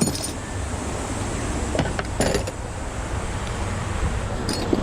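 Steady wind rumble on the microphone, with a few short metallic clinks of hand tools being handled about two seconds in and again near the end.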